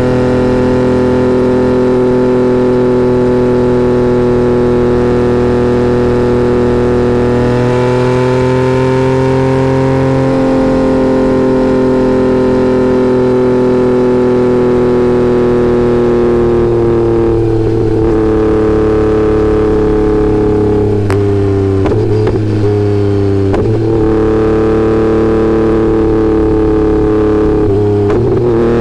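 Yamaha XSR900's inline three-cylinder engine running through a Kelpi full exhaust system with shorty pipe, baffle removed, heard from under the seat. It holds a steady note at highway speed, then, as the bike slows, the note shifts and breaks briefly several times at gear changes.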